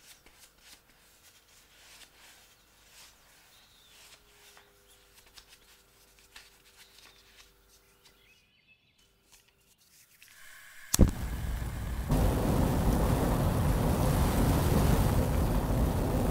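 Faint soft dabbing of a basting brush on fish skin. About eleven seconds in, a handheld gas blowtorch lights with a sharp click and burns with a loud, steady hiss that gets louder a second later.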